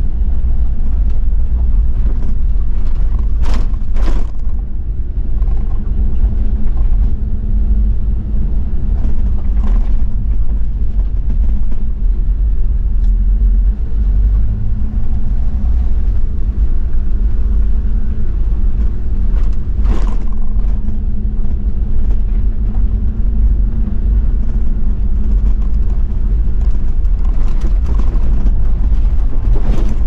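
Toyota Land Cruiser 70's 1HZ straight-six diesel engine running steadily under way on a dirt forest road, with a few sharp knocks, two close together near the start and others around a third and two-thirds of the way in.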